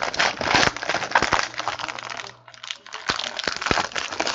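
Foil wrapper of a trading-card pack crinkling as it is torn open and handled by hand, with a brief lull about two and a half seconds in.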